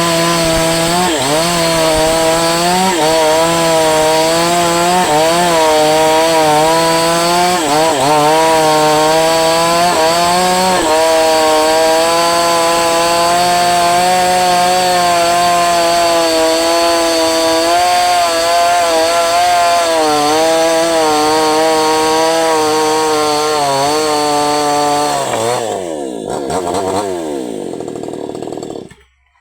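Falcon Evo 9000 two-stroke chainsaw running at high revs. Its pitch dips briefly several times in the first half, then holds steadier. Near the end the engine winds down with a falling pitch as it is shut off.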